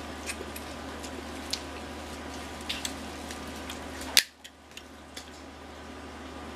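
Snow crab legs being handled and eaten, with scattered small shell clicks, then one sharp crack about four seconds in as a crab leg is snapped in two by hand.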